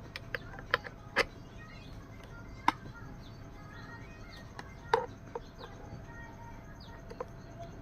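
Scattered sharp clicks and taps, about seven of them at irregular intervals, over a steady low background hum.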